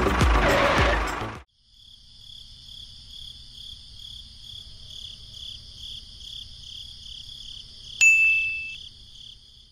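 Loud rhythmic clatter that cuts off about a second and a half in. Then crickets chirp in a steady pulsing trill over a low hum, and about eight seconds in a single bright ding rings out and fades.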